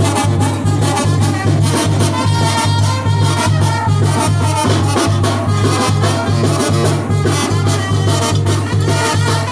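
Loud Latin dance music with a steady, pulsing bass beat and a full band sound.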